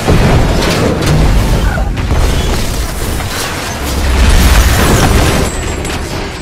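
Deep explosion booms with heavy rumbling: one hits at the start and a second swells about four seconds in, then dies away.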